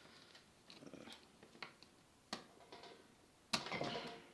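Small parts of a cassette deck's tape mechanism being worked by hand during disassembly: faint clicks and handling noises, a sharp click about two seconds in, and another click near the end followed by a brief scrape.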